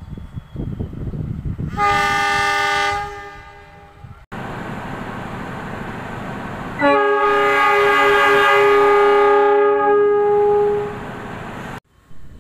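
Indonesian diesel-electric locomotive horns sounding the Semboyan 35 signal: a CC 201 gives a short multi-tone blast about two seconds in. After a cut, a CC 206 gives a longer blast of about four seconds, with the locomotive running underneath.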